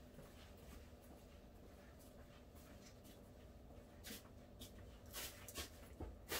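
Near silence: room tone with faint rustling and a few soft clicks of someone moving about, growing more frequent in the last couple of seconds.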